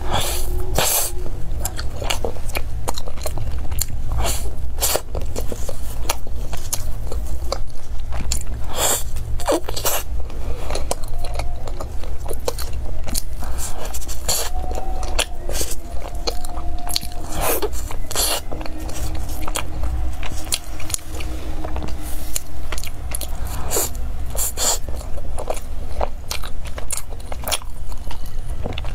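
Close-miked biting and chewing of a chocolate-coated pastry, with many sharp clicks and crackles from the mouth and food over a steady low hum.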